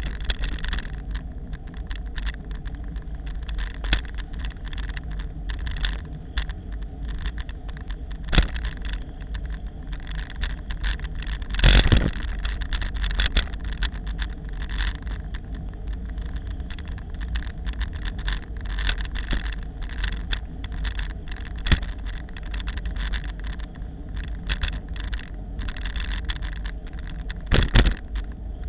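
Wind buffeting and road vibration on a handlebar-mounted Tachyon XC action camera's microphone while riding along a street: a constant deep rumble with frequent knocks and jolts from the mount. There are louder, rougher stretches about twelve seconds in and near the end.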